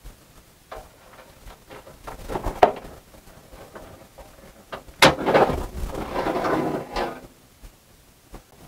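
A hard drive being worked loose and slid out of a metal drive cage in a PC case. A few clicks come early, then a sharp snap about five seconds in, followed by about two seconds of scraping as the drive slides out.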